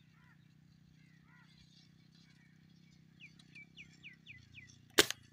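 A small bird gives a quick run of about seven short, falling chirps. Then, near the end, comes a single sharp air rifle shot, the loudest sound.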